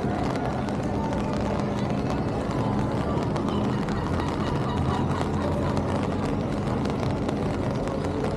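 Busy city street ambience: passing traffic with a steady engine hum and a murmur of voices.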